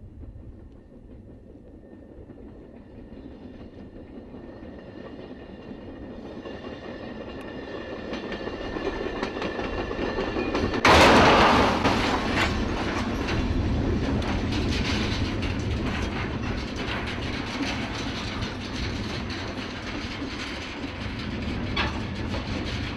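Passenger train rolling along rails, its wheels clacking and the sound growing steadily louder, then about eleven seconds in a sudden loud crash as the leading passenger car strikes a locomotive in a crash test. After the crash comes a long, loud rumbling of the joined cars moving along the track, with repeated metallic clatters and bangs.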